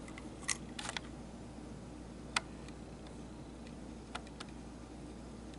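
A few faint, sharp clicks and taps from fingers handling a small die-cast toy armored truck, the loudest a little over two seconds in, over a low steady room hum.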